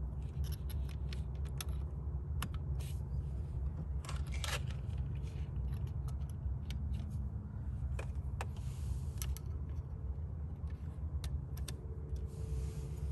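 Scattered small clicks and rattles of cable plugs being handled and pushed into the sockets of a portable autopilot's control module, over a steady low hum.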